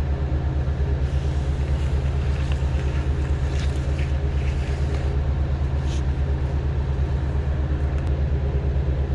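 Steady low, rapidly chugging engine sound, like a diesel idling, with an even throb of about nine beats a second.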